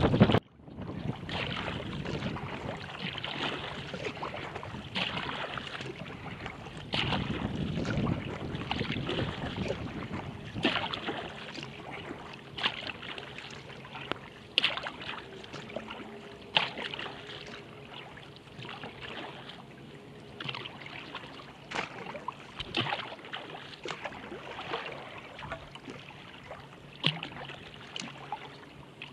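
Water lapping and swishing along a kayak's hull as it is paddled, with a paddle blade splashing in about every two seconds.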